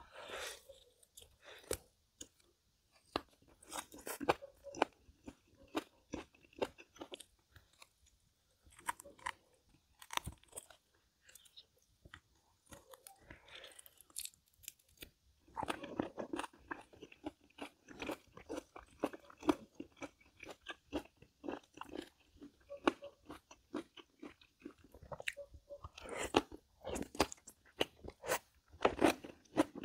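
A person eating close to the microphone: steady chewing with many crisp, irregular crunches and wet mouth clicks, louder in clusters.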